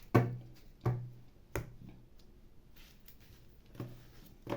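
A handful of sharp taps or clicks, about five, irregularly spaced, each with a short dull thud under it.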